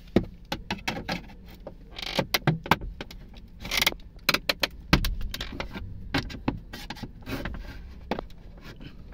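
Flathead screwdriver prying at the plastic instrument-cluster trim of a Hyundai Elantra dashboard: irregular clicks and knocks of plastic and metal, with a short scrape about four seconds in, as the clipped-in trim is worked loose.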